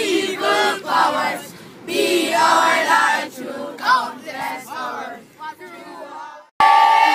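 A group of boys singing and chanting together inside a bus, in short loud phrases that get quieter toward the end. About six and a half seconds in it cuts abruptly to a louder crowd of voices.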